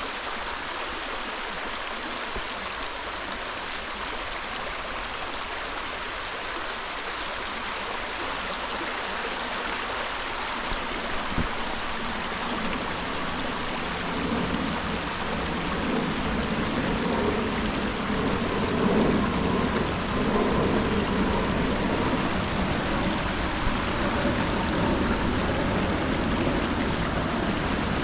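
Jacksons Creek's water running over rocks, a steady rush that grows louder and fuller about halfway through.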